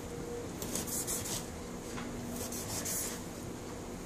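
Maestro Wu G-01 fillet knife's blade slicing through a pineapple's tough rind, making short scratching strokes in two spells, about a second in and again near three seconds.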